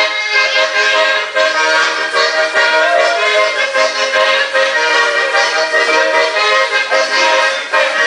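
Instrumental music, with sustained chords under a melody, playing without a break.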